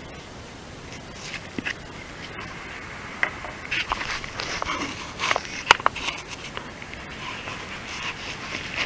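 Small plastic clicks and scrapes from a car's side indicator lamp and its bulb holder being handled and fitted by a gloved hand. The clicks come in a cluster in the middle, one of them sharper than the rest.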